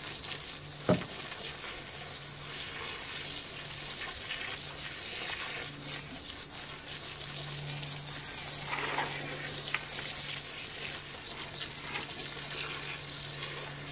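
Garden hose running a weak stream of water onto loose soil in a raised bed, a steady hiss and patter, the low flow coming from a rainwater tank and pump. A faint low hum sits underneath, and there is a single sharp click about a second in.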